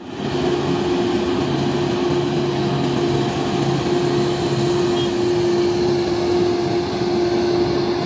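Grove GMK5300L all-terrain mobile crane driving slowly: its diesel engine running steadily with a constant hum over a wash of road noise.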